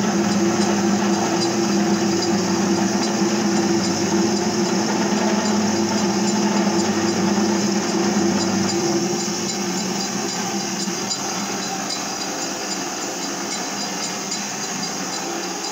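MetalMaster MML 2870 MV benchtop metal lathe running and turning a metal workpiece, a steady machine whine and hum. About nine seconds in, the lower hum fades and the sound gets a little quieter while the lathe keeps running.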